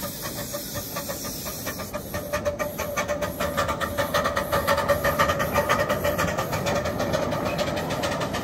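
Miniature steam locomotive working past, its exhaust chuffing in rapid, even beats over a steady hiss of steam. It grows louder as it comes closest.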